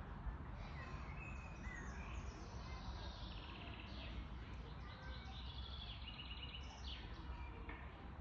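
Several songbirds singing and calling in the trees, short high chirps and a few rapid trills scattered throughout, over a steady low outdoor rumble.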